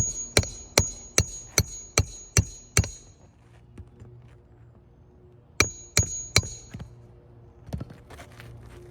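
Hammer driving roofing nails through asphalt shingles by hand: eight quick ringing blows, a pause, then three more blows.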